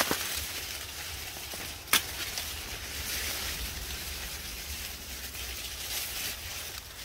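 Corn leaves rustling and brushing past as someone pushes through tall corn stalks, a hiss that swells and fades, over a low rumble. Two sharp clicks stand out, one at the start and one about two seconds in.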